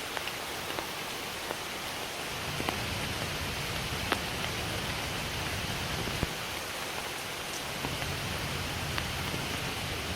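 Steady rainfall with scattered individual drops ticking sharply above the even hiss.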